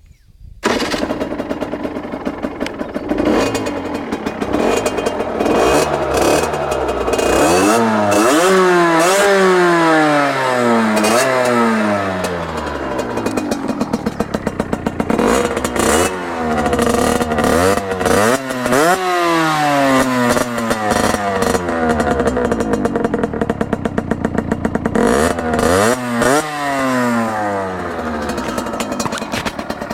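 Aprilia RS 50's 50 cc two-stroke single through a LeoVince V6 exhaust, cutting in about half a second in, idling fast and rattly, then blipped in several groups of quick revs, the pitch falling back to idle after each.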